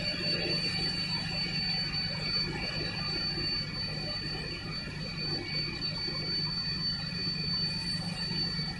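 Hydraulic press line machinery running in a factory hall: a steady low hum with a constant high-pitched whine over it.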